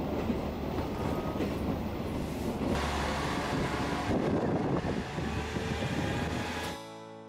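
Train running noise heard from inside a diesel train, then, after a cut about three seconds in, a KiHa 40-series diesel railcar idling at a platform with a steady low engine hum. Acoustic guitar music comes in near the end.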